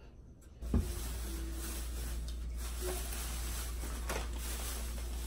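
Room tone with a steady low hum that starts suddenly just under a second in, marked by a single knock, then a few faint clicks and brief faint tones over the hum.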